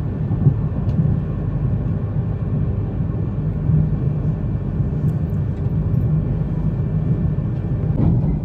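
Running noise of a Yamagata Shinkansen train at high speed, heard from inside the carriage: a steady low rumble of wheels on rail with a faint steady high whine above it.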